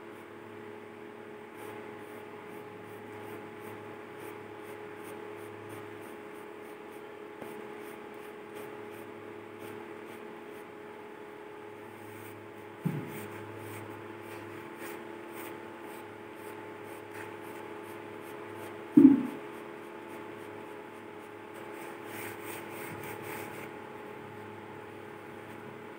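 Graphite pencil scratching and rubbing on paper in short sketching strokes, over a steady background hum. Two short, louder sounds break in, about halfway through and again some six seconds later.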